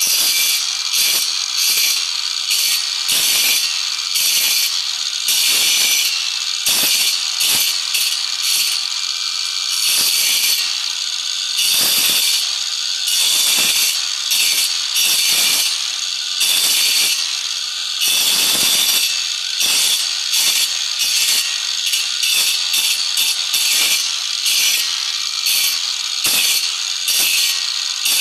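Hand tool scraping on the wooden handle of an airgun in quick, irregular back-and-forth strokes, about one or two a second, some short and some drawn out, with a hissing rasp to each stroke.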